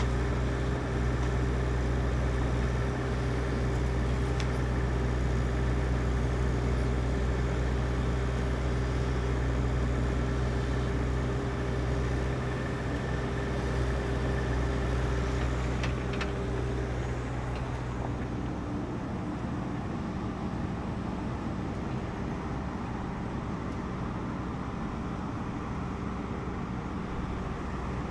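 An engine running steadily with a deep hum. About 18 seconds in, the low hum changes and a steady tone drops out.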